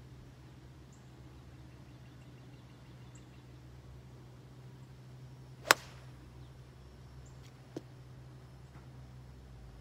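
Golf club striking the ball off the tee: a single sharp, loud click about six seconds in, followed about two seconds later by a much fainter click, over a steady low hum.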